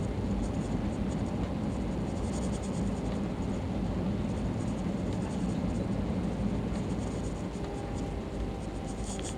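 Cabin noise of an Airbus A321 rolling on the runway just after landing: a steady low rumble of engines and wheels that eases slightly toward the end as the jet slows.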